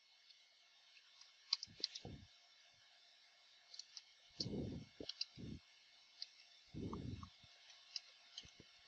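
Faint, irregular clicking of computer keyboard keys as a command is typed. A few dull low thumps, louder than the clicks, come in between.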